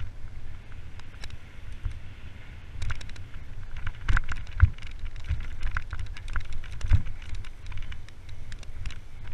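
Mountain bike descending a rough dirt trail at speed: steady wind rumble on the bike-mounted camera's microphone, with the bike clattering and rattling over the ground and sharp knocks as the wheels hit roots and bumps, the hardest about four and a half and seven seconds in.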